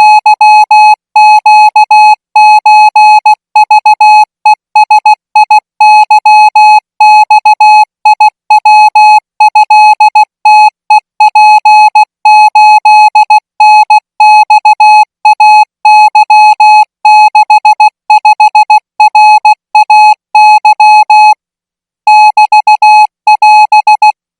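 Morse code tone sending Thai characters at 20 words per minute: a single buzzy pitch switched on and off in short dots and longer dashes, with letter and word gaps. It pauses briefly about 21 seconds in and stops just before the end.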